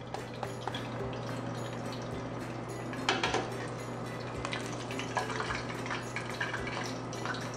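Hot oil bubbling and crackling around pork belly deep-frying in a stainless steel pot, with a louder brief noise about three seconds in as the pieces are turned with tongs.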